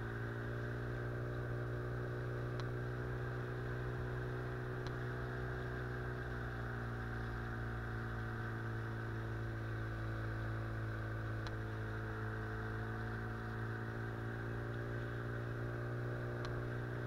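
Small outboard motor on an inflatable boat running at a steady speed: a continuous low, even drone, heard muffled, with a few faint ticks.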